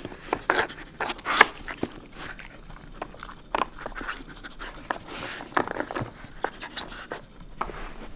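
Samoyed panting and sniffing as it noses a plastic Nina Ottosson Dog Hide N' Slide puzzle, with irregular clicks and knocks from the sliding plastic pieces and cones.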